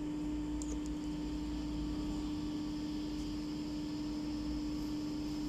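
Steady electric hum with one constant tone over a low rumble, and no stitching. A couple of faint light ticks come just under a second in.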